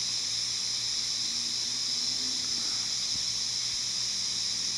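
Lawn sprinklers watering: a loud, steady hiss of spraying water.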